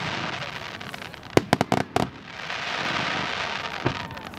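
Fireworks display: a quick run of about five sharp bangs from shells bursting, a little over a second in, with a longer stretch of dense crackling hiss after them and one more bang near the end.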